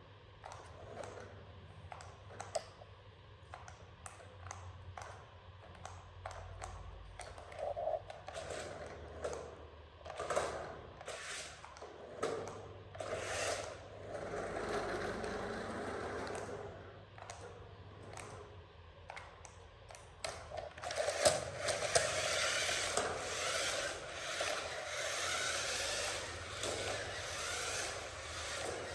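Toy vehicles scraping and clicking over a rough course, with many short knocks. About two-thirds of the way in, a louder, steady rushing noise sets in under the clicks.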